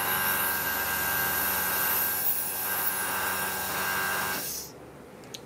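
A small motor running with a steady whirring hiss, then cutting off about four and a half seconds in.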